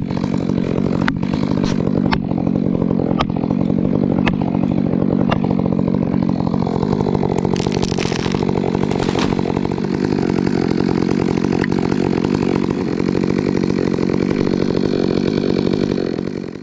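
Stihl MS 462 two-stroke chainsaw running steadily at high revs while cutting through a birch trunk. Sharp cracks come about once a second in the first five seconds, and a brief rush of noise comes about eight seconds in as the tree goes over.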